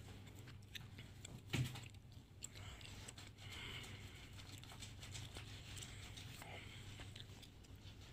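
Soft, faint squelching and sloshing of wet, soapy cloth being scrubbed and squeezed by hand in a plastic tub of water, with one louder knock about one and a half seconds in.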